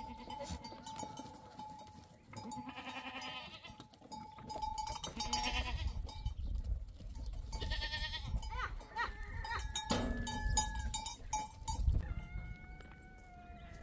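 Goats bleating, with loud calls about three, five and eight seconds in and a thinner one near the end, over the steady ringing of a livestock bell.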